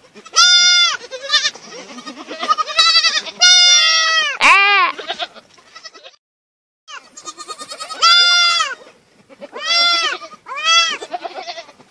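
A kid goat and a lamb bleating at feeding time while they jostle for a bottle, a run of about ten short bleats, each rising and falling in pitch. The sound cuts out completely for under a second about halfway through.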